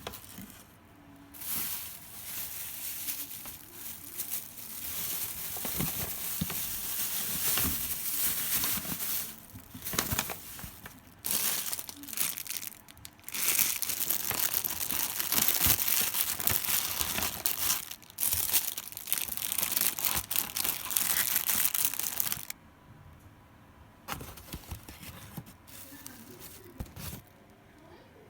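Packaging crinkling and rustling as it is handled, in long stretches with short breaks, then only faint handling sounds for the last few seconds.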